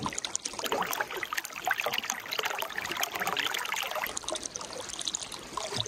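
Hot-spring bath water trickling and splashing: a dense, steady patter of small splashes.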